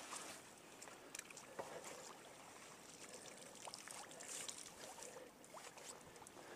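Faint water splashing and dripping as a large pole-mounted dip net (намет) is swept through a shallow river and lifted out, with scattered small clicks and splashes.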